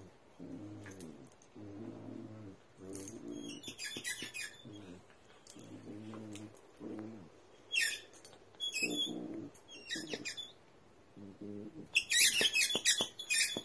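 Dogs play-growling in repeated low rumbles while wrestling, with a rubber squeaky ball giving quick stuttering runs of high squeaks as it is chewed. The squeaks are loudest near the end.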